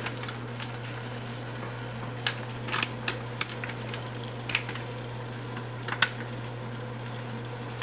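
Ground beef frying in a stainless steel pot, a steady sizzle with a few short ticks and crackles spaced through it.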